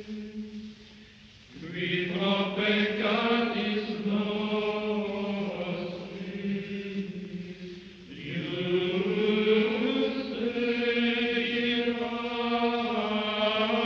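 Chant-like vocal music: long held, slowly sliding notes over a steady low drone, with phrases swelling in about a second and a half in and again about eight seconds in.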